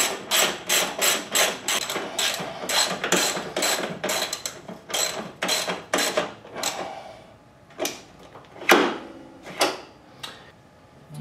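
Hand ratchet wrench tightening the hanger-bracket bolts on a motorcycle exhaust: quick back-and-forth ratcheting strokes at about three a second, then a couple of single louder metal knocks about two thirds of the way in.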